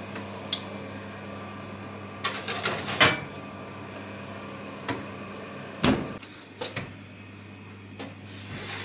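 A metal baking pan is set onto the rack of a Beko built-in oven and the oven door is shut. It makes a string of clanks and knocks, the loudest about three seconds in and another near six seconds, over a steady low hum.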